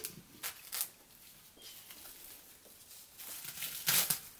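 Plastic cling wrap crinkling and rustling as it is handled over a stainless steel bowl, with a couple of short crackles early on and a longer, louder rasp of wrap being pulled off the roll near the end.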